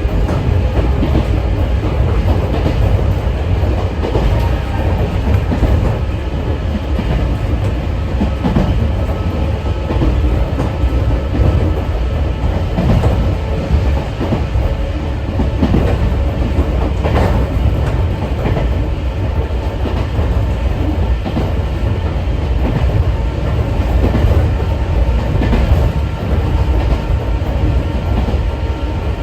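Sangi Railway 801 series electric train (ex-Seibu 701 series) running, heard from inside the car: a steady heavy rumble with wheels clacking over rail joints.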